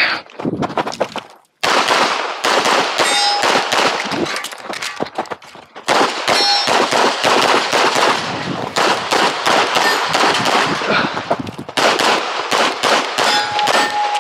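Rapid strings of pistol shots from a red-dot-equipped competition handgun, fired in quick bursts with a short pause about four and a half seconds in. Several shots are followed by the brief ringing ping of steel targets being hit.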